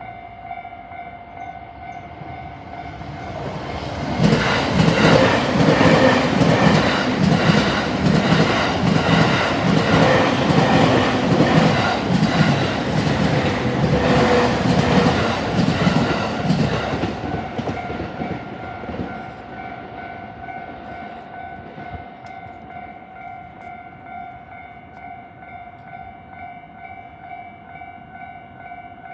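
A train passes over a level crossing on the Tohoku Main Line, its wheels clattering over the rail joints from about four seconds in, fading after about seventeen seconds. The crossing's warning bells ring steadily before, during and after the train.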